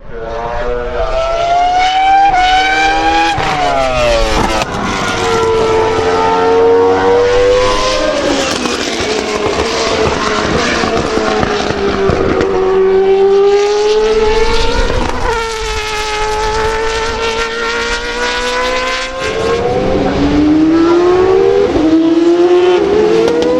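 Formula 1 cars' naturally aspirated V10 and V8 engines screaming at high revs, loud. The pitch climbs and then drops sharply several times as cars go past, with more than one engine heard at once.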